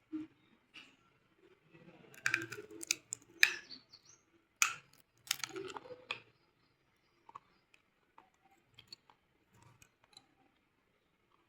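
Slate pencils being bitten and crunched: a run of sharp, dry crunches and snaps from about two to six seconds in, then only faint scattered clicks.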